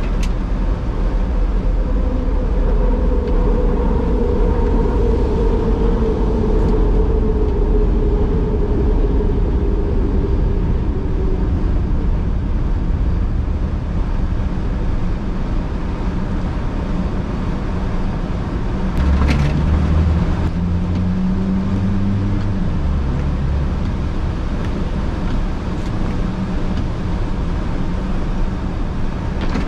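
Steady road noise of a car driving on wet pavement in the rain, heard inside the cabin. A hum slowly falls in pitch during the first dozen seconds, and a louder low rumble comes in briefly about twenty seconds in.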